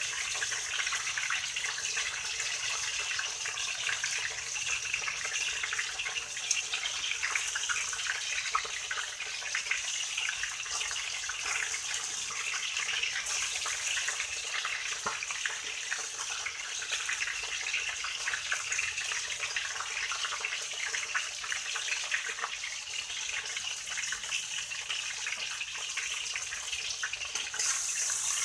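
Pieces of fish sizzling in hot oil in a stainless steel wok: a steady hiss with fine crackling throughout.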